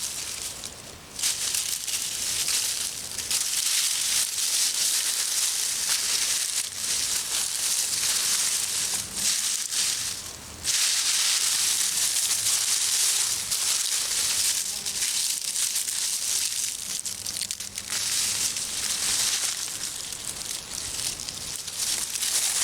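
Dry garden mulch rustling and crunching as it is pulled back by hand and potato plants are pulled up through it, with brief pauses about a second in and around ten seconds in.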